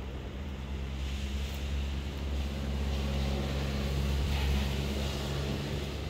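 Steady low engine hum, growing a little louder about halfway through and easing off near the end.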